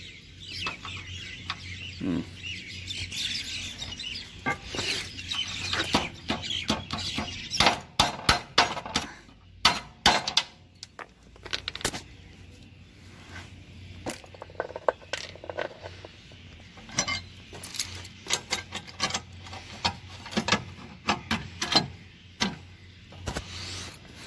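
Irregular metal clinks, taps and knocks of hand-tool work on a mower deck's steel parts, coming thickest in two clusters partway through.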